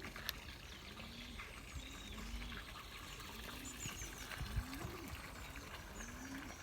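Domestic pigeons cooing softly: a string of short, low coos that rise and fall, about one a second, with faint chirps of small birds higher up.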